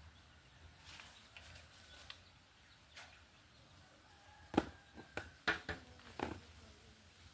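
A quick run of about six sharp taps and knocks in under two seconds, the first the loudest, from a woven bamboo basket being handled and knocked over a plastic bucket, against a faint outdoor background.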